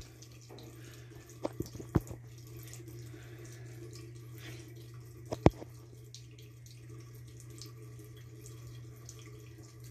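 Bathroom sink faucet running a thin trickle into the basin, over a steady low hum. A few sharp clicks break through, the loudest about five and a half seconds in.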